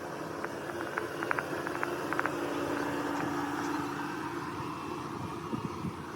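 A steady mechanical hum, with a few short clicks in the first couple of seconds.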